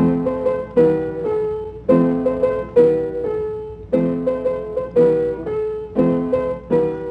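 Music: a keyboard, likely piano, plays an instrumental intro of chords struck in a steady rhythm, about one a second.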